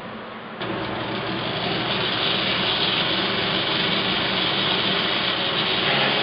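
Steady mechanical running noise, an even roar with no clear pitch, that starts abruptly about half a second in and grows slightly louder.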